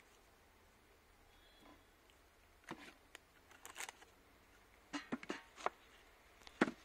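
Scattered light clicks and knocks, starting about two and a half seconds in, as a stingless bee hive box is handled and opened.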